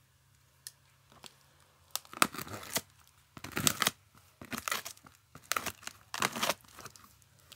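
Clear plastic packing tape on a cardboard box being split and torn along the seam with a pen tip, in about five short tearing strokes over the second half.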